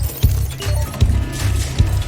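Background music with a fast, steady bass beat and a few sharper accent hits.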